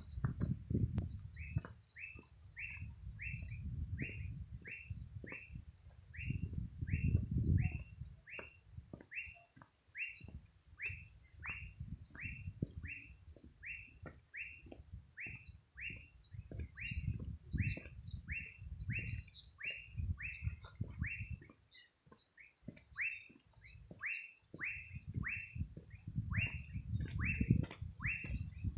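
A bird calling over and over, one short note falling in pitch about twice a second, with a faint high steady trill behind it. Uneven low rumbling noise comes and goes on the microphone.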